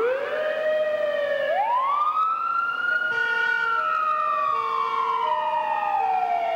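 Ambulance siren wailing. Its pitch rises sharply at the start, climbs again about a second and a half in, then slides slowly down through the rest. A fainter two-note tone alternates beneath it.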